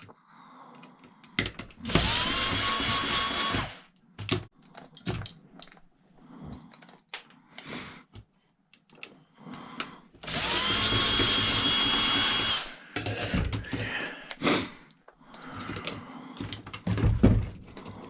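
Power drill spinning out screws during a cash register teardown, in two runs: one of under two seconds about two seconds in, then a longer one past the middle. Each time the motor's whine rises as it spins up, then holds steady. Between the runs are clicks and knocks of parts being handled.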